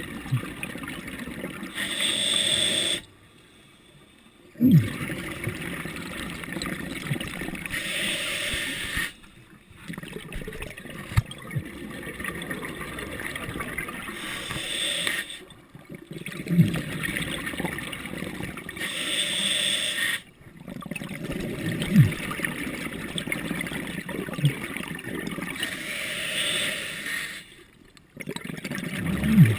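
Scuba diver breathing through a regulator underwater: a slow cycle about every six seconds, each exhalation a loud rush of exhaust bubbles, followed by a brief near-silent pause.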